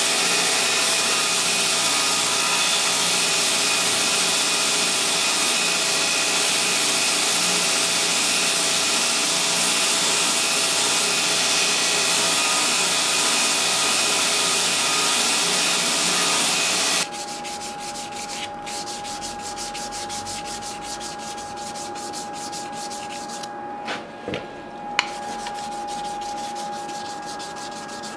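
Belt grinder running with a steady high hiss as a curved steel scabbard fitting is ground against its abrasive belt. About 17 seconds in this gives way to quieter hand finishing of the metal piece, rapid back-and-forth rubbing strokes.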